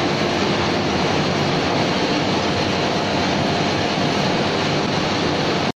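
Steady mechanical noise of an 18-ton fully hydraulic open-die forging hammer and its oil-hydraulic drive running, with a faint steady hum and no distinct hammer blows. It cuts off suddenly near the end.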